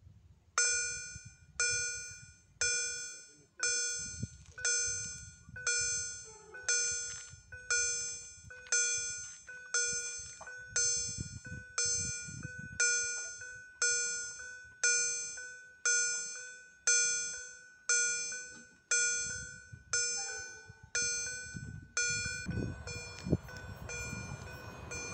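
Railway level-crossing warning bell ringing, single strikes a little under a second apart, each ringing out before the next, sounding as the crossing's red lights flash for an oncoming train. Near the end a steady rushing noise rises as a train approaches.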